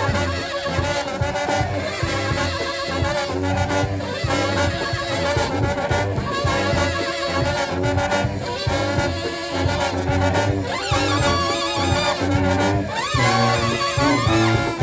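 New Orleans-style brass band playing a jazz tune: trombone and trumpet over a pulsing sousaphone bass line and drums.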